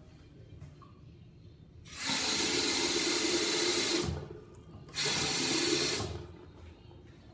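Water from a restroom sink faucet running onto the metal drain grate in two spells of about two seconds each, with a break of under a second between them.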